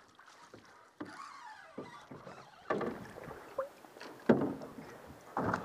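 Drift boat on the river: water slapping and a few irregular knocks and creaks from the hull and gear, the sharpest coming about a third and three-quarters of the way through.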